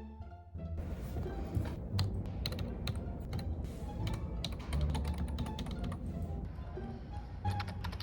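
Computer keyboard typing: irregular, quick keystroke clicks, over background music.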